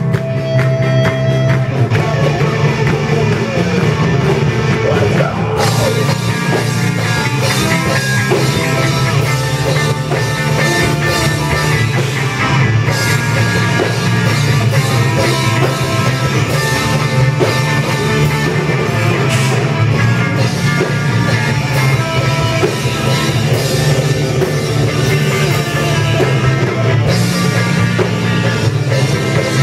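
A rock band playing loud through amplifiers: electric guitars, electric bass and a drum kit. The cymbals come in strongly about five seconds in.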